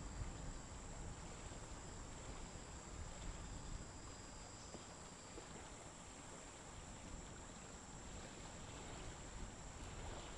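Quiet aquarium ambience: a faint steady hiss and low rumble with a thin, steady high-pitched whine over it.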